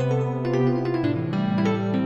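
Background music with sustained keyboard chords; the chord changes about a second in.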